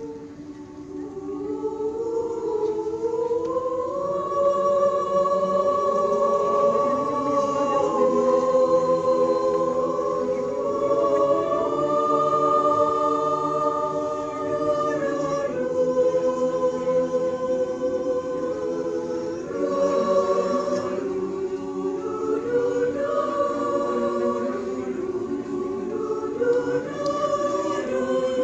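Mixed choir of women and men singing slow, long-held chords, swelling up over the first few seconds.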